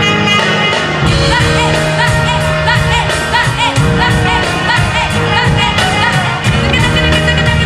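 Loud playback of a Tamil film-song fusion mix, with a sung or ornamented melody over the music; a deep bass part comes in about a second in.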